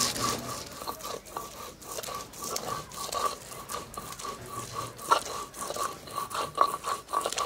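Spices being ground by hand on a flat stone slab (shil-pata) with a stone roller: uneven crunching and scraping strokes, with a few sharper clicks, one about five seconds in and a couple more near the end. A steady, rapidly pulsing high chirp runs behind it.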